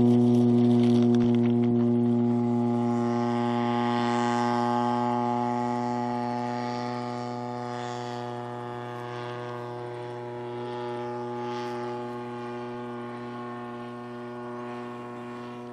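Radio-controlled model tow plane's motor and propeller running at a steady high-power drone as it climbs out towing a glider, slowly fading as it draws away.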